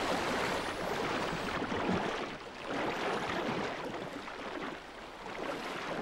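Water splashing and rushing as a pod of dolphins porpoises through choppy sea, swelling and easing a few times.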